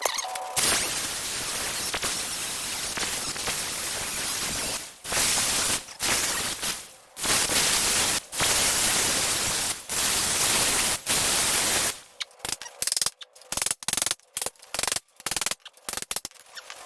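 Power tool working on a steel truck-frame rivet, run in long loud stretches with brief pauses, then in a string of short quick bursts for the last few seconds.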